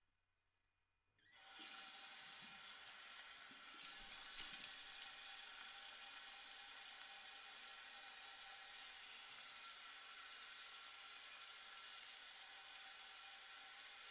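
Bathroom tap running steadily into a sink, the water starting about a second in, as a man washes his face.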